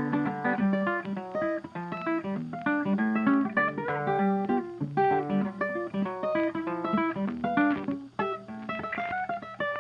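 Background music: a quick, plucked acoustic guitar piece.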